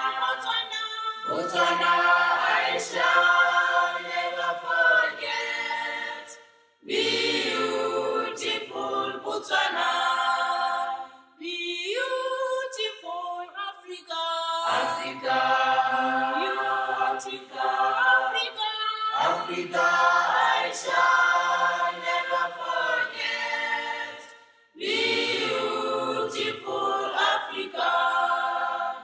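A group of voices singing unaccompanied in harmony, in phrases of a few seconds each with short breaks between them.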